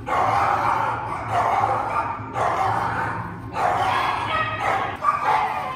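Caged shelter dogs barking pitifully, in runs of about a second with short breaks between them.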